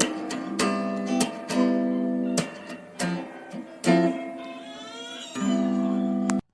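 Acoustic guitar music: strummed chords and plucked notes ringing out, with a run of sliding notes about two-thirds of the way through.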